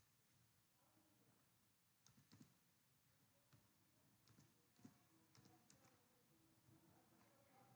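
Very faint computer keyboard keystrokes and mouse clicks: a scattered series of short clicks, several in quick pairs and triplets, as numbers are typed into a form.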